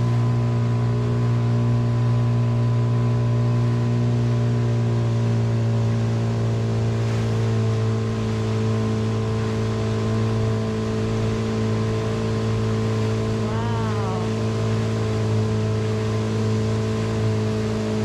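A boat engine running at a steady low drone, over the rushing hiss of a waterfall. A brief high call is heard about three-quarters of the way through.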